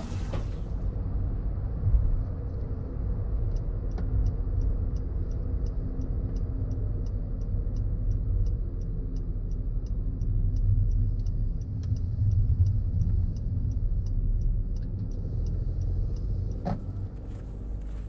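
Car driving on a road, heard from inside the cabin as a steady low tyre and engine rumble. A turn signal ticks evenly, roughly twice a second, for most of the stretch, stopping about two seconds before the end.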